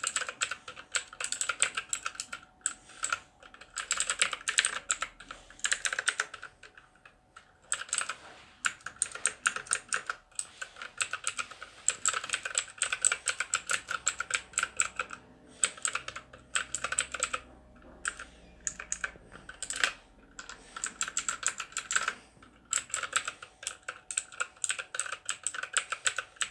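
Rapid typing on a Scorpion KG930 RGB keyboard: fast runs of key clicks, broken by short pauses every few seconds.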